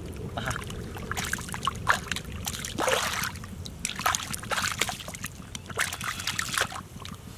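Hands splashing and squelching in shallow muddy water, grabbing at a fish buried in the mud: a run of irregular wet splashes and sloshes that die down near the end.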